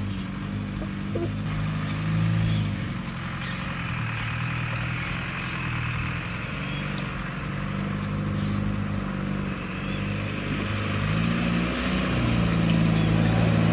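Diesel engine of heavy construction machinery running steadily, its pitch shifting up and down a few times as it is worked.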